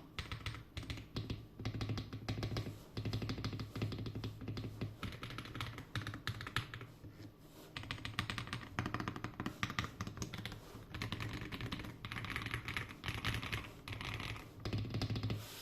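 Typing on a GMK67 mechanical keyboard with KTT Kang White linear switches: fast runs of keystrokes broken by short pauses, three times.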